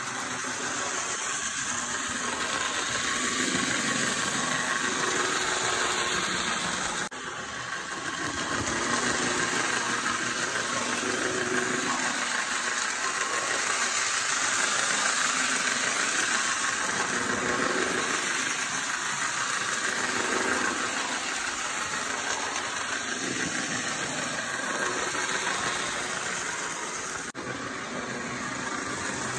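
Bachmann HO scale Thomas the Tank Engine (LBSC 70) model locomotive running on its track: a steady whir of its small electric motor and rattle of its wheels on the rails, swelling and fading as it moves along. It briefly drops out twice, about seven seconds in and near the end.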